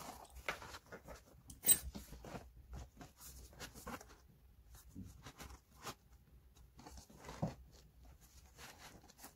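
Hands handling the plastic and metal parts of a gaming chair's backrest bracket while fitting it to the seat: scattered rustles, scrapes and small clicks, with one sharp click just under two seconds in.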